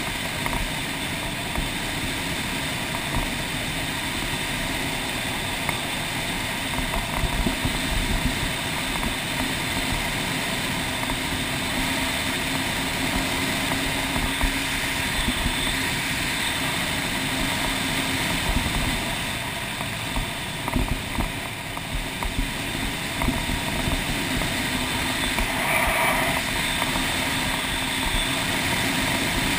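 Motorcycle riding at speed on a gravel road: the engine runs steadily under a constant rush of tyre and road noise.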